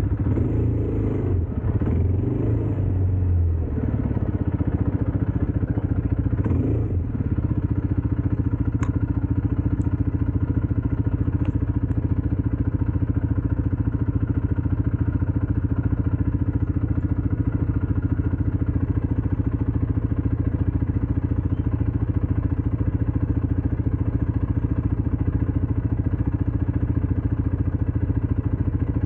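ATV engine running, its note shifting with some clatter for the first several seconds, then holding steady.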